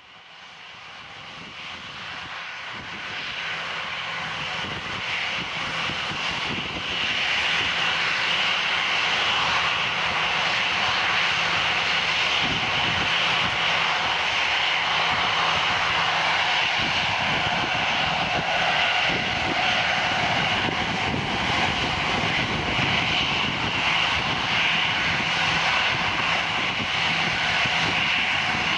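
Airbus A330-343 airliner on final approach, its two Rolls-Royce Trent 700 turbofans running at approach power with a high whine over a rushing roar. The sound grows louder over the first several seconds, then holds steady.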